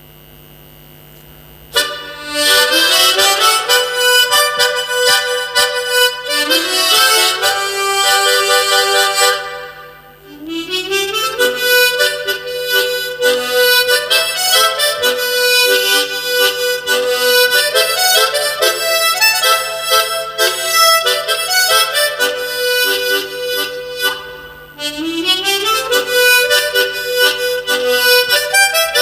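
Unaccompanied melody played on a pair of harmonicas in G and G#, shaped with tongue and mouth-shape effects. It starts about two seconds in, several phrases open with upward sliding notes, and there are brief pauses about a third of the way in and again near the end.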